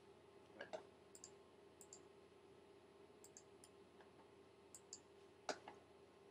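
Computer mouse clicking: a double click about half a second in and another near the end, with a few faint light ticks between them, over a low steady hum.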